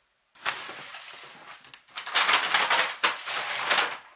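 Cardboard shipping boxes being handled and shifted on a tabletop: a continuous run of scraping, rustling and small knocks that grows louder about two seconds in.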